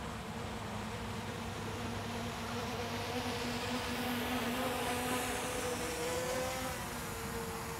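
Quadcopter drone's propellers humming with a steady buzz as it descends overhead. The hum grows louder about four to six seconds in as the drone comes close, and its pitch shifts slightly as it slows.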